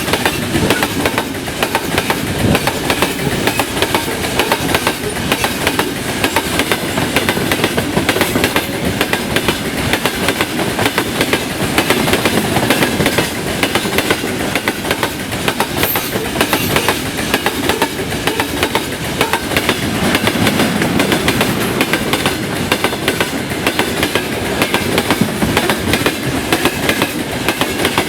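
Freight train rolling past close by, its wagon wheels clattering over the rail joints in a steady, continuous clickety-clack.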